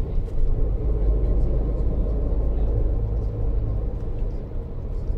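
Inside the cabin of a moving Neoplan Tourliner coach: the diesel engine and road noise make a steady low rumble.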